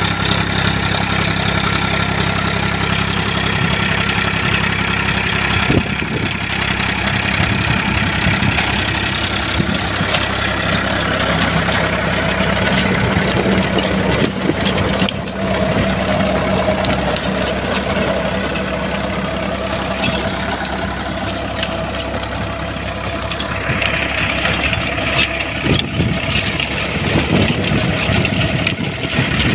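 Powertrac 439 Plus tractor's diesel engine running steadily under load, driving a rotavator whose blades churn soil and crop residue, with a broad rushing clatter and occasional sharp ticks over the engine hum.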